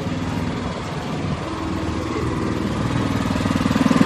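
A small motor vehicle's engine running as it passes close by, getting louder near the end.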